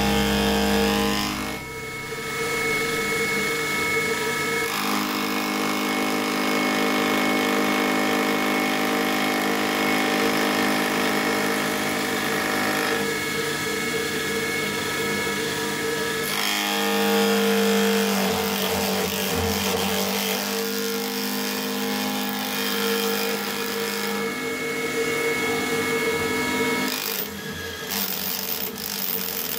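Milling machine spindle driving a homemade dovetail cutter with two carbide inserts through a metal block, a steady machining whine whose tones shift every few seconds as the cut goes on. Near the end the sound turns uneven, as part of the setup works loose from too much vibration.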